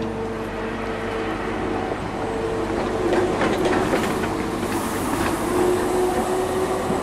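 A street tram passing close by on its rails, loudest about three to five seconds in, with clicking from the wheels on the track. A steady humming tone fades out partway through.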